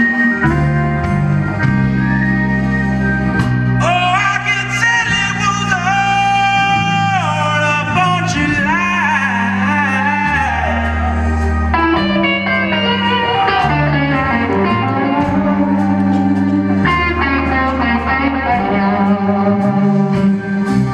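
Live blues-rock band playing a slow blues: a man singing over electric guitar, bass guitar and drums, with long held, wavering notes.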